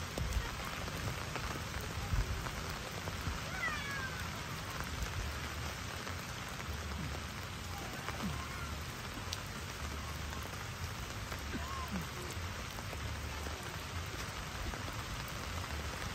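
Steady rain falling on a camping tarp, with drops running off its edge. A few faint, short gliding calls sound through the rain.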